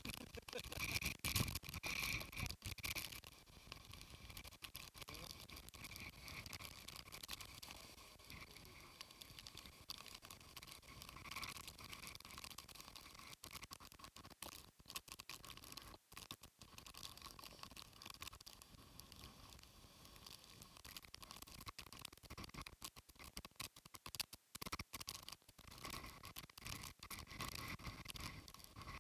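Typhoon wind and wind-driven spray buffeting the camera microphone: an irregular crackling patter with a steady hiss, louder in gusts during the first few seconds.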